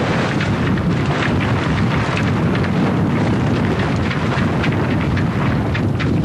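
Wind buffeting the microphone: a steady, loud rush with rapid crackling gusts throughout.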